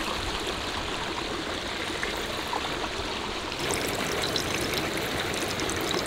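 Breaded sunfish fillets frying in hot oil in a small cast-iron skillet: a steady sizzling hiss, with fine crackling and popping joining in a little past halfway.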